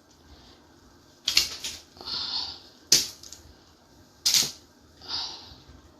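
Potato pieces being put into a pot of parboiling chicken: a few sharp knocks about a second or more apart, some followed by a short hiss.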